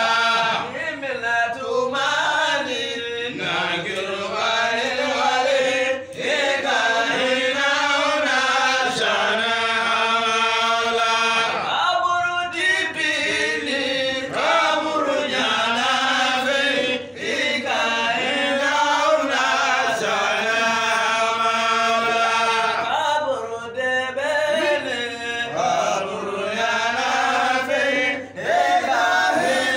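Men's voices chanting a devotional song in long held, wavering notes, with brief pauses between phrases every few seconds.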